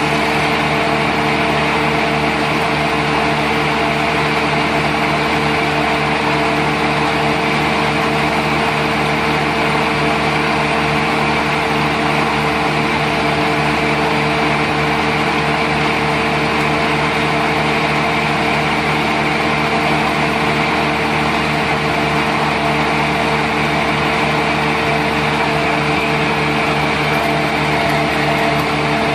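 A machine's engine or motor running steadily with a constant hum, with no change in pitch or load.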